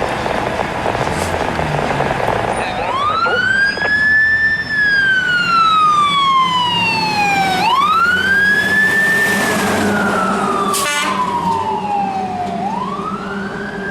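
Fire engine siren starting about three seconds in and wailing in slow cycles, each a quick rise to a high pitch followed by a long, even fall, about five seconds apart, over the steady hum of the truck's engine. A brief sharp crackle sounds about eleven seconds in.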